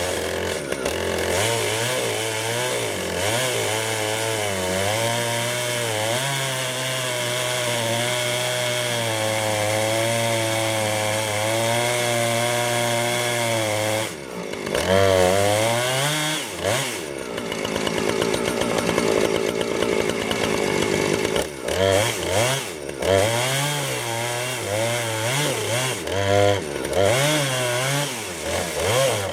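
Husqvarna Rancher 455 two-stroke chainsaw with a 24-inch bar and ripping chain ripping lengthwise through a log in a chainsaw mill, running steadily under load. About halfway through the engine dips and then revs up, and after that its pitch rises and falls unevenly as the load changes.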